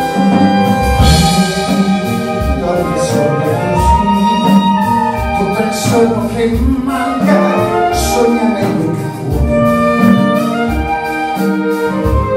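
A small jazz-pop band playing live: a saxophone melody over double bass and drums, with cymbal strikes.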